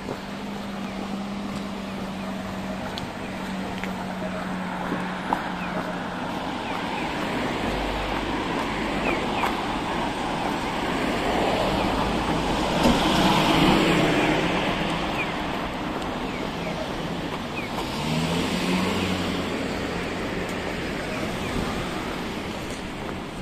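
Road traffic: cars passing along the street, the tyre and engine noise swelling to its loudest about 13 seconds in. Near 18 seconds an engine note rises as a car accelerates past.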